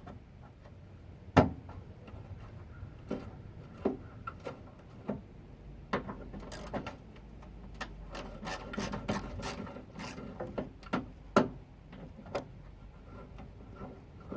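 Irregular knocks and clicks of hand tools and plastic car body parts as a bumper is put back in place and screwed on, with a close run of quick clicks about two-thirds of the way through.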